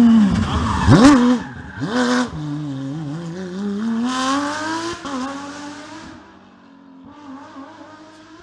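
Porsche 997 GT3 rally car's flat-six engine revving hard as it passes close and pulls away. The pitch falls as it goes by and twice drops sharply and snaps back up. It then climbs steadily under acceleration and fades into the distance, with brief rushes of tyre noise.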